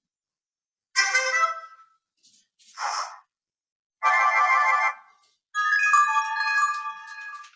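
A run of short iPhone SE preset tones played one after another with silent gaps: a chime about a second in, a brief hiss near three seconds, a buzzy tone at four seconds, then a melodic chime of several notes from about five and a half seconds.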